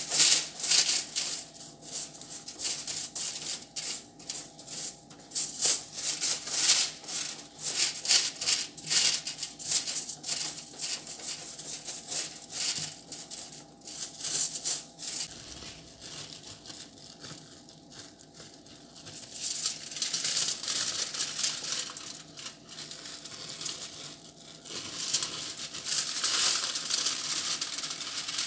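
Plastic cling film and aluminium foil crinkling and rustling as hands roll and pull the wrap around a soft food roll. Irregular crackles, easing off for a few seconds past the middle, then a denser rustle again.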